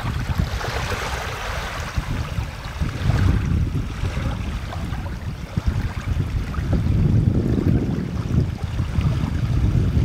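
Wind buffeting the microphone outdoors: a gusty low rumble that rises and falls, with a brighter hiss over it for the first few seconds.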